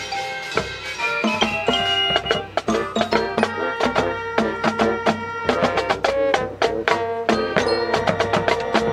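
Marching band playing: brass chords with many sharp marching-drum hits and marimba.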